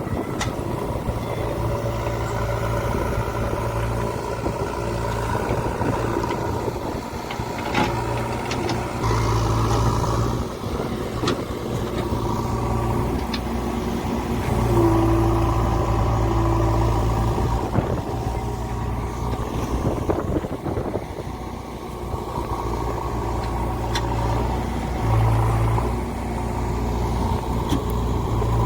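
Diesel engine of a JCB 3DX backhoe loader running, its revs rising and falling several times as it works, with a few short knocks.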